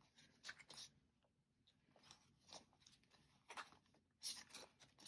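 Near silence, broken by a few faint, scattered rustles and crinkles of paper money and plastic binder pockets being handled.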